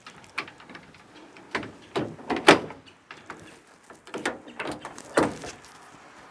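Irregular knocks and thumps of gear and tools being handled and set down, the loudest about two and a half seconds in and again about five seconds in.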